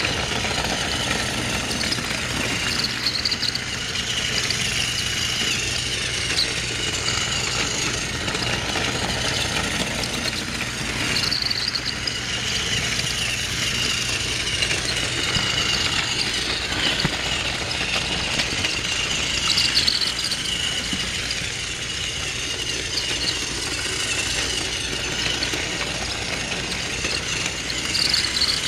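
Motorized Thomas & Friends toy train running round a plastic track loop: a steady small-motor whine with rattle, swelling about every eight seconds as the train comes round close by.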